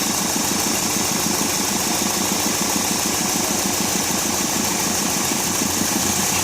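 2001 Hyundai Accent's four-cylinder engine idling steadily with a fast, even ticking, while its number four fuel injector is checked for a misfire; the injectors are opening and closing normally.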